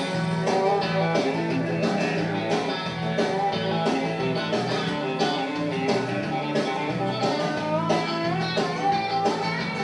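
Country song playing, an instrumental stretch with guitar and a steady beat.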